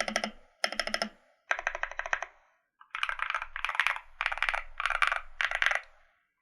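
Custom KBD D65 mechanical keyboard with lubed and filmed Zaku switches on an FR4 plate and ASA-profile keycaps, typed on in quick runs of keystrokes. The clacks come in short bursts with brief pauses, and a longer stretch of steady typing fills the second half.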